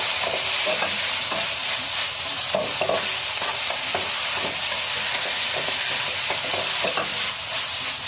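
Green vegetables sizzling in a hot wok as they are stir-fried, with a wooden spatula scraping and tossing them in irregular strokes over a steady hiss.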